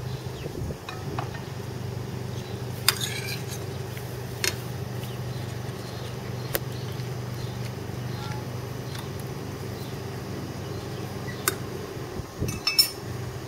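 Metal spoon clinking against a stainless sauté pan of shrimp in tomato sauce: a few sharp, spread-out clinks, then a quick cluster of them near the end, over a steady low hum.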